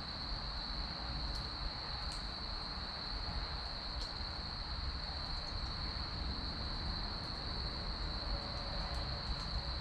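Wood fire crackling, with a few sharp pops from the burning firewood, over a steady high-pitched tone.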